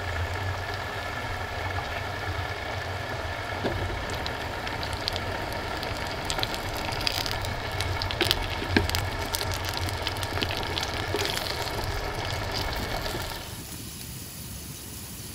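Small cubed potatoes sizzling in goose fat in a Ridge Monkey sandwich pan on a wood-burning stove: a steady sizzle with scattered spits and crackles. The sizzle drops away abruptly near the end.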